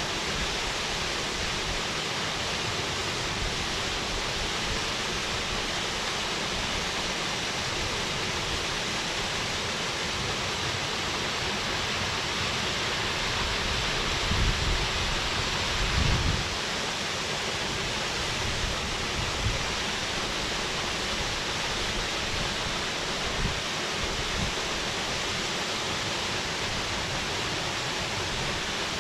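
Waterfall: a steady rush of falling water, with a few brief low bumps about halfway through.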